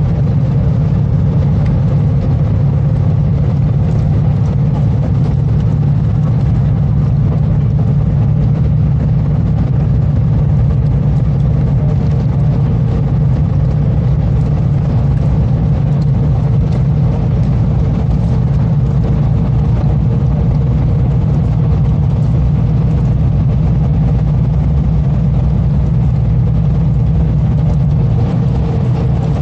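Steady low rumble of engine and road noise inside a moving vehicle's cabin, with a faint steady hum.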